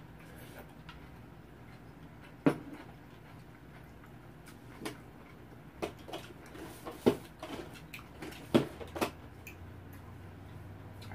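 Scattered sharp clinks and knocks of a spoon against a bowl and the bowl set down on a table during eating. The loudest knock comes about two and a half seconds in, followed by a cluster of smaller knocks between about six and nine seconds.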